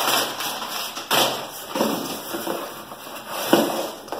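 Rustling and light knocks as parts and packing are handled while a shipping box is unpacked, with sharper bursts about a second in and again near the end.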